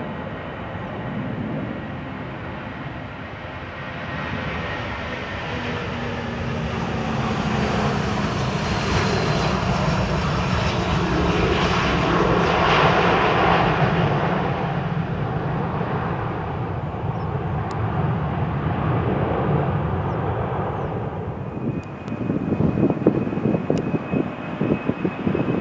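Jet engines of a Boeing 757-200 taking off and passing by: the noise builds to a peak about halfway through, then fades. Near the end it cuts to a Boeing 747-400 at take-off power, louder and more uneven.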